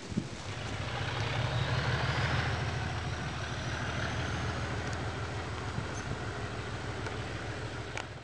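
English Electric Class 37 diesel locomotive's engine working hard as it pulls a train away. The steady low engine note swells about half a second in and holds, while a thin turbocharger whistle climbs in pitch over the first few seconds.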